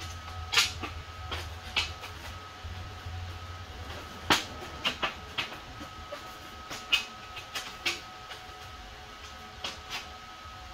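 Irregular sharp knocks and clanks of a steel sheet being handled and shifted against the floor and wall, the loudest about four seconds in, over a steady electrical hum with a thin high whine.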